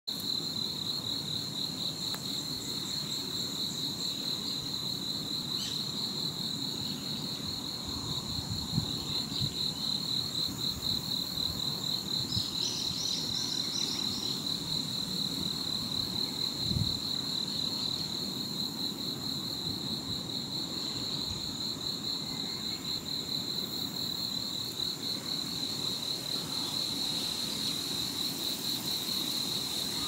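An insect trilling steadily, one high, fast-pulsing note that goes on without a break. There are a few brief higher chirps near the middle and a low outdoor rumble underneath.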